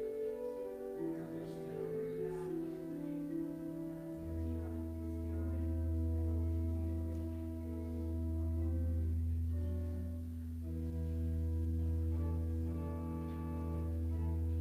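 Slow instrumental music of long held notes in chords. A deep bass note comes in about four seconds in and is held, while the loudness swells gently up and down.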